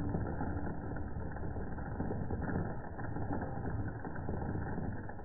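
Magic Spoon grain-free cereal puffs poured from the box into a ceramic bowl: a steady dry rattle of many small pieces landing, dull and muffled.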